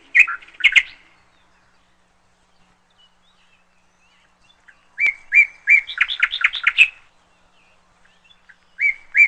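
A songbird singing in short phrases. A few chirps come at the start, then after a pause of several seconds a quick phrase of a steady note followed by a rapid run of chirps, and another phrase begins near the end.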